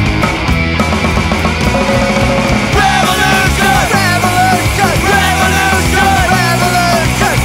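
Punk rock song played by a full band, with a sung or shouted vocal line coming in about three seconds in.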